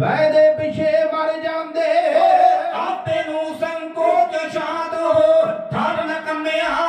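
Kavishri singing: male voices singing a Punjabi verse in long, held notes.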